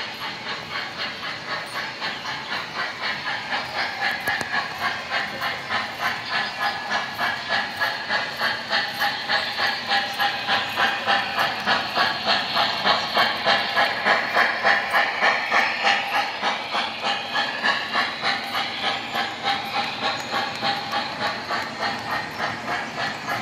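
MTH O scale 0-6-0 steam locomotive's onboard sound system chuffing in a steady, even rhythm as the model runs along the track. The chuffing grows louder about halfway through, then eases off.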